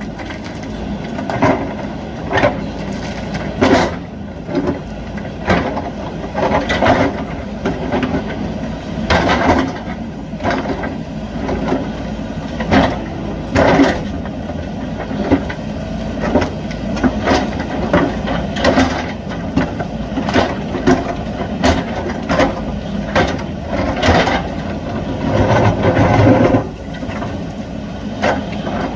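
JCB 3DX backhoe loader's diesel engine running steadily under load, with irregular knocks and crunches of rock as the bucket digs and breaks into stone.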